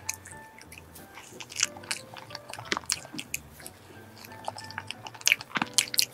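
Eating sounds of a soft cream-filled pastry: bites and chewing with sharp mouth clicks, the loudest in a cluster near the end, over quiet background music.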